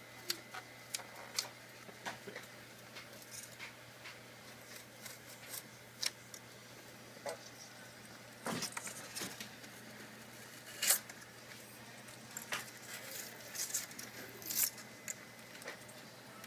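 Scattered small clicks, taps and light scrapes of tools and fingers working a part loose on a laptop, over a faint steady low hum. The sharpest click comes about eleven seconds in.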